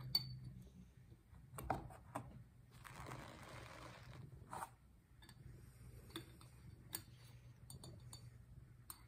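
Faint, scattered clinks and ticks of a thin metal hook scraping inside a glass orchid flask as plantlets and agar are teased out, with a short soft rustle about three seconds in.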